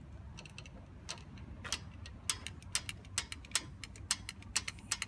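Irregular sharp metallic clicks and ticks of hand tools working on the vacuum pump fittings of a Cessna 172M's engine. The clicks come more often from about halfway through.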